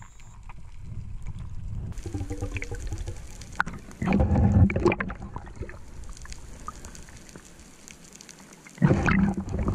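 Underwater sound of a diver's camera: a low churning of water with bubbling, and two louder rushes of water and bubbles, about four seconds in and again near the end.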